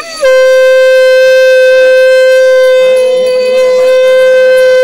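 A blown horn sounding one long, steady, loud note, sliding up into pitch at the start and then held without a break.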